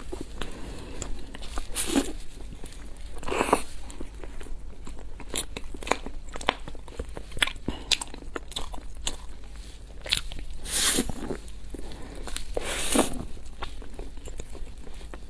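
Close-miked eating sounds: a person biting into and chewing a large fried, crumb-coated bun, with many small crisp clicks and wet mouth sounds and a handful of louder crunching bites spread through.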